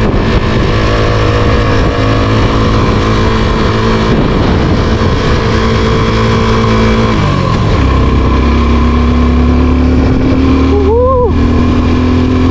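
A motor running steadily with a pitched hum, its pitch gliding down about seven seconds in and then holding lower. A short rising-then-falling cry comes near the end.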